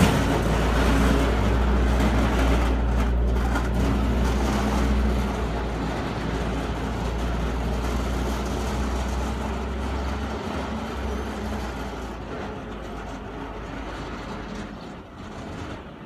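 New Holland 655E backhoe loader's diesel engine running as it pushes snow with a straight blade, the sound growing steadily fainter as the machine moves away.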